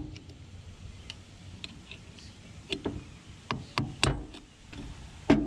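Irregular sharp metal clicks and taps of a hooked tool picking and prying at an old Allis-Chalmers D14 axle seal in its hub, trying to catch the seal's lip and pop it out; the loudest clicks come about four seconds in and near the end.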